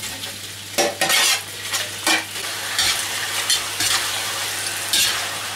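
Sliced pig ears going into a hot cast-iron wok of frying ginger, chili and garlic, sizzling in the oil, with the sizzle surging about a second in. A metal spatula then stirs them, scraping against the wok over the sizzle.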